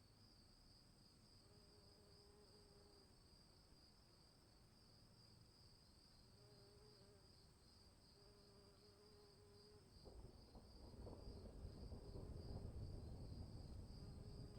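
Faint chorus of crickets chirping steadily in a high, fast-pulsing trill. A few faint, drawn-out low tones come and go, and from about ten seconds in a low rushing noise swells up beneath the crickets.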